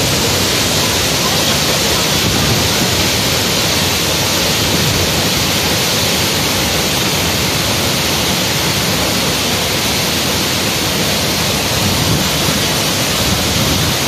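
Waterfall plunging down a rock face into its pool, heard close: a loud, steady rush of falling water.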